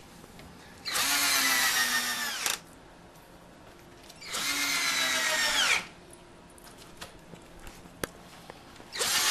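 Cordless drill driving wood screws into a pine 1x4 board: two runs of about a second and a half each, then a third starting near the end. The motor's whine sinks in pitch toward the end of each run.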